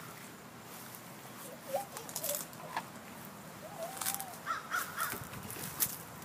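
A crow cawing, a quick series of three calls about four and a half seconds in, with a few short sharp clicks around it.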